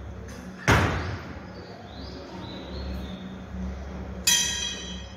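A sharp thump about two-thirds of a second in, then near the end a temple bell struck once, ringing with many high metallic tones.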